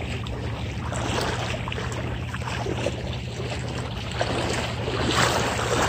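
Legs wading through shallow floodwater, a steady sloshing and splashing with each stride.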